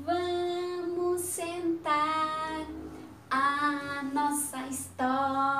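A woman singing a children's story-time song in about four phrases, each ending on a long held note.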